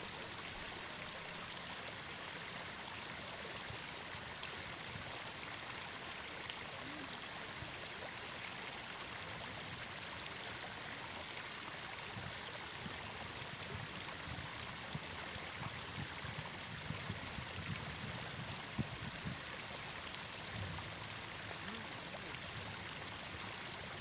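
Faint, steady rushing noise of a riverbank, like flowing water, with a few soft knocks in the second half.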